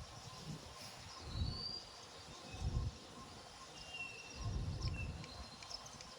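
Wind gusting against the microphone in three low rumbling surges, with birds calling in short whistled notes over a faint outdoor hiss.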